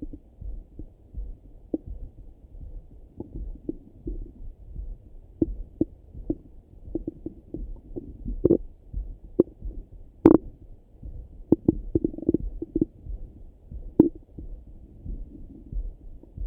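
Bowel sounds heard through a Littmann stethoscope pressed to the belly: scattered short gurgles and clicks, the sharpest about ten seconds in, over a regular low pulse.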